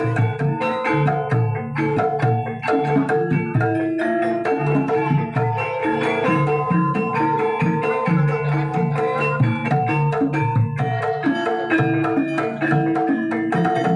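Javanese Banyumasan gamelan music accompanying the dance: hand-played kendang drums keep a driving rhythm under repeating struck mallet-instrument notes.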